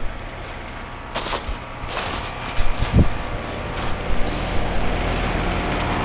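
Amana heat pump outdoor unit running with a steady low hum, with bursts of rushing noise starting about one and two seconds in and a hiss that then grows louder.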